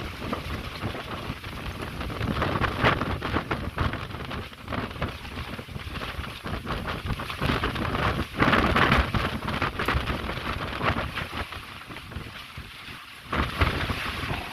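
Windstorm: gusting wind and heavy rain in a dense, crackling rush that swells and eases, loudest about two-thirds of the way through.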